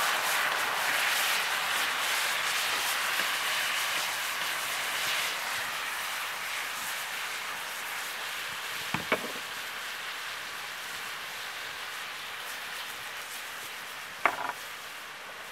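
Pork pieces sizzling in soy sauce in a large wok over a wood fire, the sizzle slowly dying down. The stirring ladle knocks sharply against the wok twice, about nine seconds in and near the end.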